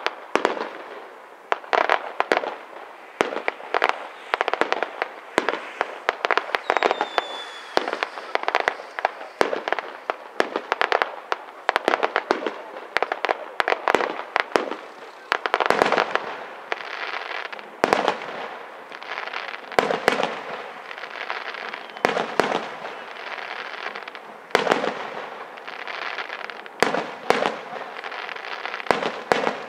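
Aerial firework shells bursting in a rapid, uneven barrage of sharp bangs, several a second, with dense crackling between them.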